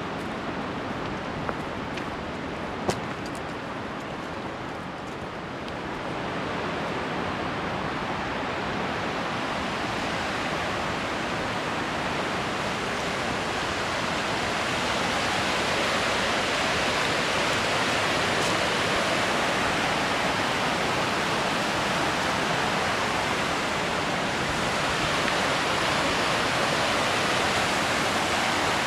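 Waterfall cascade rushing steadily: water tumbling over rock, a dense, even roar that grows a little louder several seconds in and holds.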